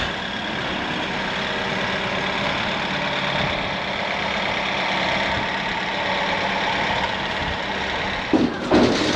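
A large vehicle's engine idling steadily, with louder, uneven knocks and noises coming in near the end.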